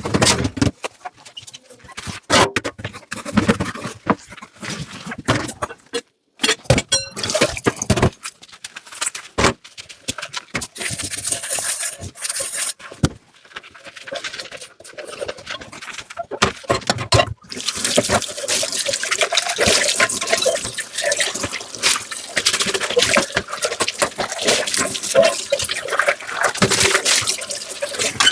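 Dishes clinking and knocking in a kitchen sink, then tap water running steadily over them from about two-thirds of the way through.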